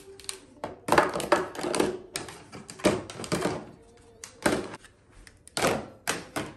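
Hard plastic storage bins clacking and knocking against each other and the shelf as they are moved and set in place: clusters of quick knocks about a second in and around three seconds in, then single sharper knocks between four and a half and six seconds in.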